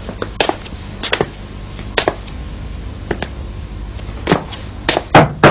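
A series of sharp knocks, about eight, unevenly spaced and bunching closer together near the end, over a faint steady low hum.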